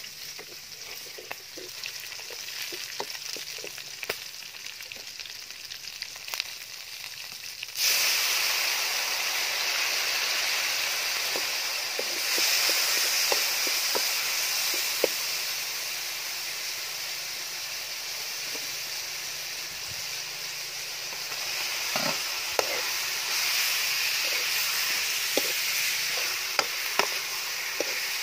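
Garlic, chili and aromatics sizzling in oil in a steel wok, with scattered clicks and scrapes of a metal spoon stirring against the wok. About eight seconds in the sizzle suddenly gets much louder and stays loud, and near the end more spoon knocks come as the contents are stirred.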